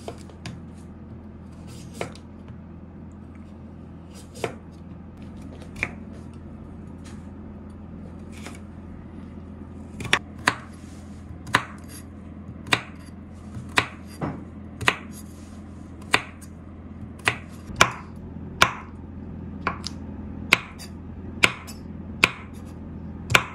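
Kitchen knife chopping carrot and then green beans on a wooden cutting board: single sharp knocks of the blade striking the wood. The knocks are a few seconds apart at first, then come about one a second from about halfway through.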